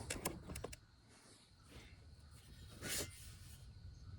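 Faint handling noises from car parts being moved by hand: a few light clicks in the first second, then a soft rustle about three seconds in.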